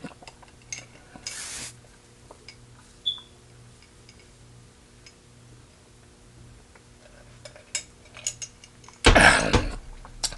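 Quiet eating sounds: faint scattered clicks and a short rustle as fried chicken and its dishes are handled, with a louder rush of noise about nine seconds in.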